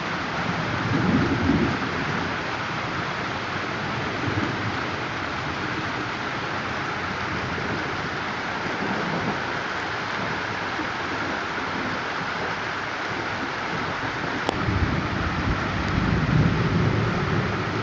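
Heavy rain falling steadily during a thunderstorm, with low rolls of thunder; the longest and loudest rumble begins about three-quarters of the way through, after a single sharp crack.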